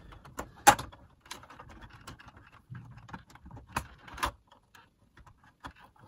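Plastic clicks, knocks and rattles as the case and piano-key transport controls of a Philips ARC33 radio cassette are handled while its cassette mechanism is worked free. A sharp click a little under a second in is the loudest, with more knocks near the four-second mark.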